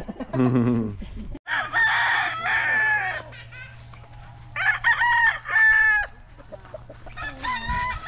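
Roosters crowing: one long crow about a second and a half in, a second about four and a half seconds in, and a third starting near the end.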